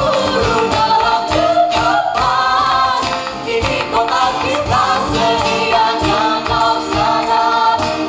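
A group of young voices singing together into microphones, a sung poetry setting, over a steady percussive beat.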